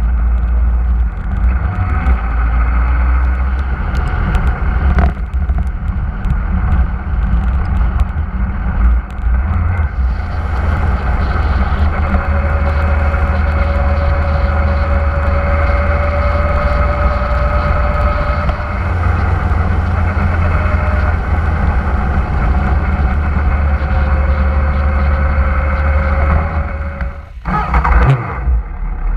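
Motorcycle riding at road speed, heard from a bike-mounted camera: heavy wind rumble over the microphone with the engine's steady drone under it. About two seconds before the end the sound cuts abruptly to a quieter, different scene.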